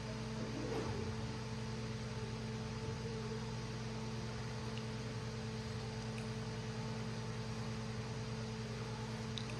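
Steady electrical mains hum from a PA sound system over a faint hiss of room noise.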